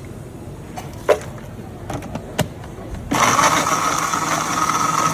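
A few sharp clicks and knocks, then about three seconds in an electric blender switches on suddenly and runs steadily, blending fruit for juice.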